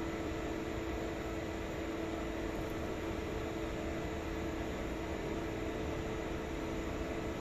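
Cooling fans of a 15R 330 W beam moving-head stage light running: an even whir with a steady low hum.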